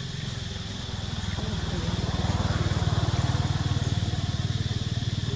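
A small engine running unseen, its fast low pulsing getting louder toward the middle and easing off a little near the end.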